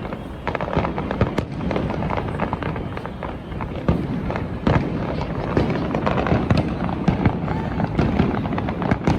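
Fireworks display going off continuously: a dense stream of bangs and crackles over a steady rumble.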